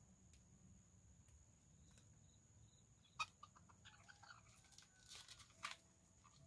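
Faint chicken clucks and short squawks in the second half, starting with a sharp click about three seconds in.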